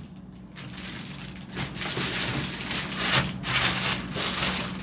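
Plastic packaging wrap crinkling and crackling as it is handled and pulled off. It is quiet at first and louder from about one and a half seconds in.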